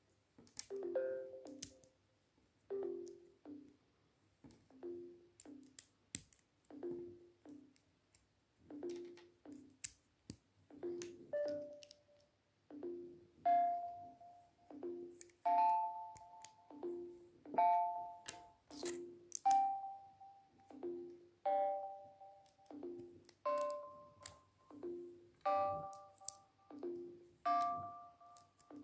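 Background music: a light tune of short ringing notes on a steady beat of about one a second, with a higher melody joining about eleven seconds in.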